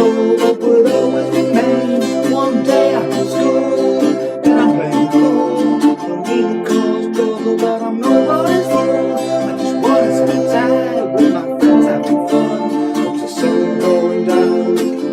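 Music played on a plucked string instrument, with the chords changing every three to four seconds.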